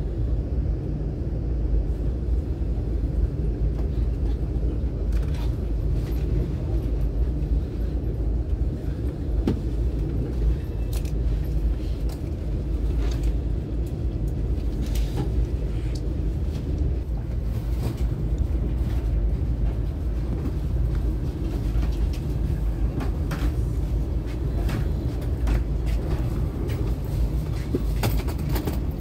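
Steady low rumble of a CRH high-speed train, heard from inside the passenger cabin as the train rolls along, with scattered faint clicks and knocks.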